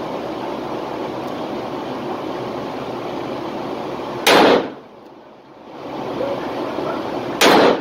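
Two shots from a Rock Island Armory AL3.1 .357 Magnum revolver loaded with light .38 Special wadcutters, about three seconds apart, over a steady background noise in an indoor range.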